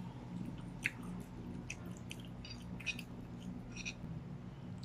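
Close-up chewing of a mouthful of spaghetti, with a handful of short, sharp wet clicks scattered through it, over a steady low hum.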